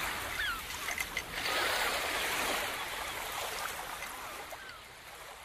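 Small waves washing and lapping on a sandy beach, a steady hiss of water that gradually fades away, with a few faint short chirps over it.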